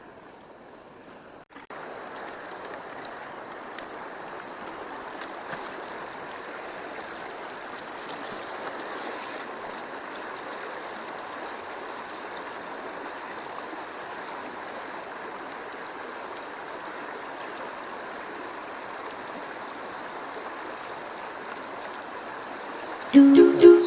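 Stream water rushing over rocks in a steady wash, stepping louder after a brief break about a second and a half in. A short, loud sound comes near the end.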